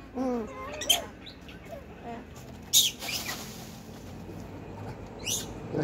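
Long-tailed macaques calling: a short lower call at the start, then sharp high squeaks about a second, three seconds and five seconds in, the one near three seconds the loudest.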